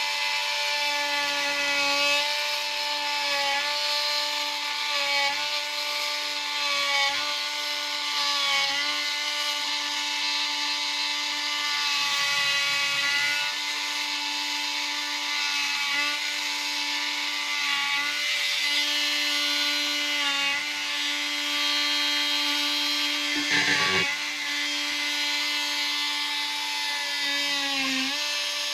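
Oscillating multi-tool fitted with two blades back to back, cutting a channel into soft aircrete block: a steady buzzing whine. Its pitch sags briefly as the blades bite under load, most sharply twice near the end.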